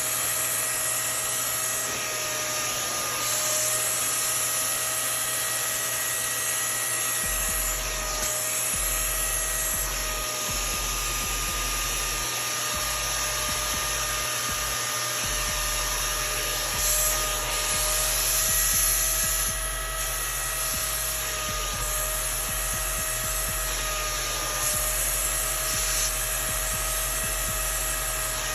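Hart 3-in-1 wet/dry vacuum's motor running steadily with a high whine, its pitch dipping slightly now and then.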